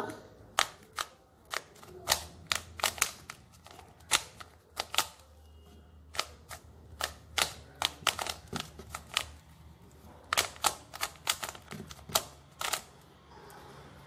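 A 3×3 Rubik's cube being turned by hand, its layers clicking sharply in quick runs of turns with short pauses between. These are the turns that put the remaining white corner pieces in place to finish the first layer.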